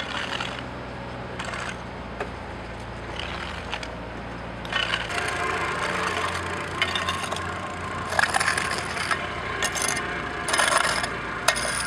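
A squeegee scraping dry jointing sand across stone sett paving in repeated gritty strokes, working the sand into the joints between the setts. The scraping gets louder about halfway through.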